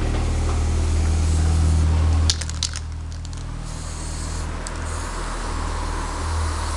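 A low engine hum close by, loudest for the first two seconds or so before it drops away, then a few sharp clicks of a spray can, then aerosol spray paint hissing in spurts onto asphalt.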